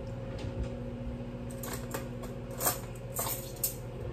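Ceramic dinner plates clinking as they are handled and set out: a few short clinks about one and a half to two seconds in and again near the end, over a steady low hum.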